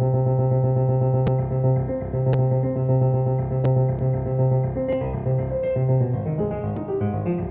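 Electronic music from a randomized step-sequencer pattern: a rapid repeating pulse over a held low note, turning into a busier run of shifting notes about five seconds in.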